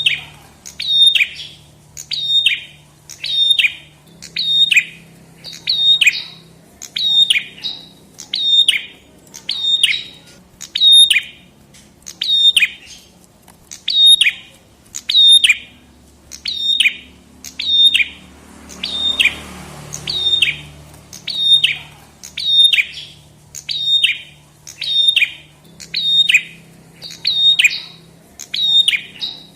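Prenjak kepala merah (red-headed prinia) calling: a sharp, falling chirp repeated about once a second, on and on at an even pace.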